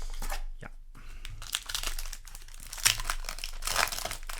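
Foil booster pack wrapper of a trading card pack crinkling and tearing open by hand, a dense crackle with a few sharper crackles about three and four seconds in.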